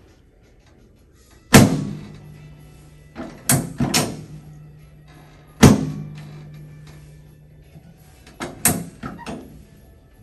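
Chiropractic drop table's lumbar drop piece snapping down under the chiropractor's thrusts during a drop-technique adjustment of the low back: a series of sharp thunks at uneven intervals, each of the big ones followed by a short low ring. The loudest comes about a second and a half in, then a pair a few seconds in, another about halfway, and a quick cluster of three near the end.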